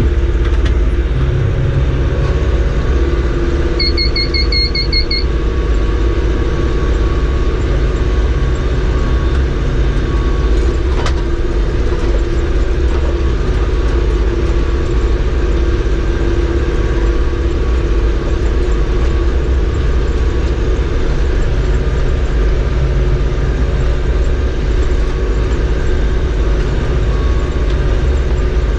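Tractor engine running steadily while baling hay, a low, even rumble with a steady hum. About four seconds in, a quick run of high beeps sounds for a little over a second.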